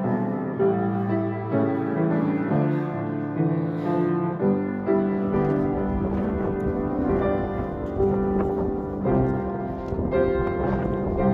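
Background music led by piano, with notes struck at a steady pace.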